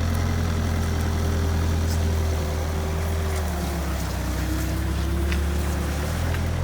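Bobcat 175 skid-steer loader's diesel engine running steadily, with its note dipping slightly about halfway through and then creeping back up.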